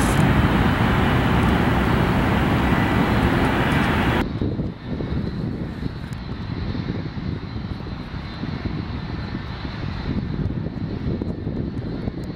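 Loud, steady jet engine noise of a twin-engine widebody airliner landing close by, cut off sharply about four seconds in; then quieter, more distant jet engine noise of another twin-engine widebody on its takeoff run.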